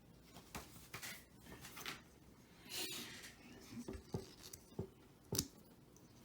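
Small plastic Transformers Micromaster figures being twisted and fitted together by hand: faint, irregular clicks of joints and parts, with some rubbing.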